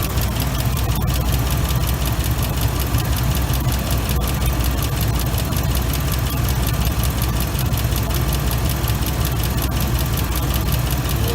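A 2005 Ford F-150's engine idling steadily, with a fast, even ticking over the top.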